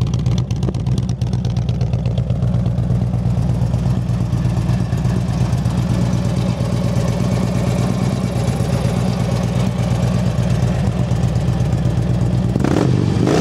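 2007 Harley-Davidson Street Glide's fuel-injected 96-cubic-inch V-twin idling steadily through its chrome exhaust, then revved once near the end. It runs with no strange noises, the sound of a healthy motor.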